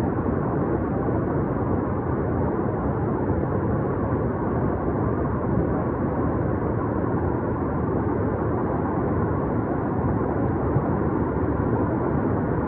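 Floodwater rushing in a flash flood: a steady, even roar with no breaks.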